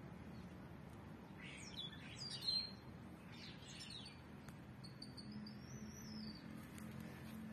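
Birds chirping: a cluster of quick high chirps about two seconds in, then a thin whistled note that rises and falls.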